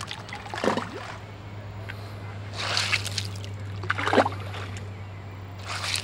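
Small stones plopping into shallow water, four times about a second and a half apart, over a steady low hum.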